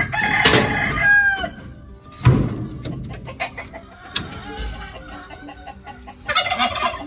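A rooster crowing once, a call about a second and a half long that falls away at the end, followed about two seconds in by a single dull thump.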